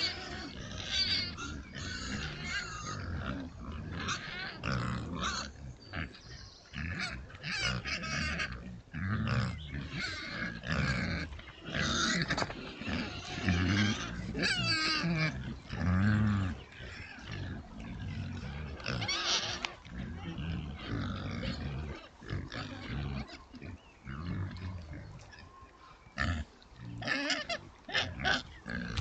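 A sounder of Oxford Sandy and Black pigs grunting and squealing again and again, deep grunts mixed with high squeals, over rustling as they move and root through the woods. It dies down for a few seconds past the middle, then picks up again near the end.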